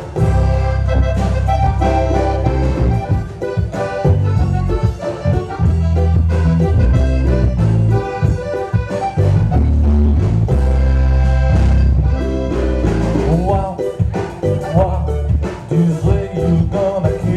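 Background music with a strong bass line and a steady beat, with an accordion-like melody on top.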